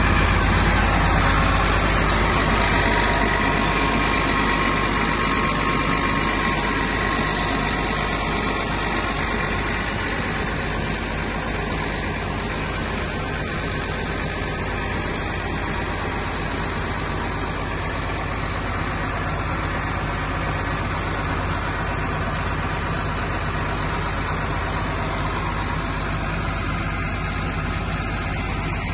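Diesel engine of a Wirtgen W 100 F cold milling machine running steadily at idle, heard up close in the open engine bay.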